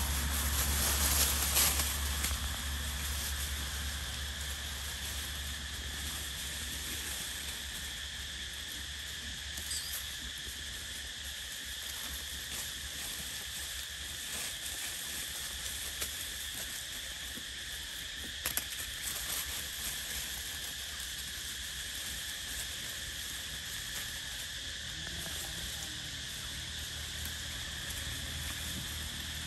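Steady drone of an insect chorus in the forest, two even high-pitched bands, over a low rumble. A louder rustling spell in the first two seconds and a couple of short knocks about two-thirds of the way through, from macaques moving about on the dry leaf litter.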